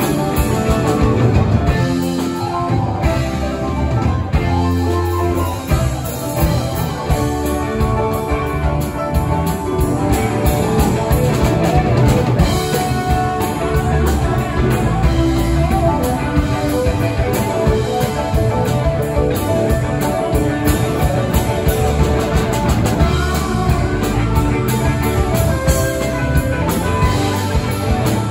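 Live rock band playing: electric guitars, bass guitar, stage keyboard and drum kit together at a steady loud level.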